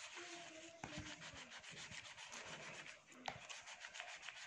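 Faint scratchy rubbing and scraping of hands and a metal polvoron molder working the powdery polvoron mixture in a plastic bowl, with a few small clicks.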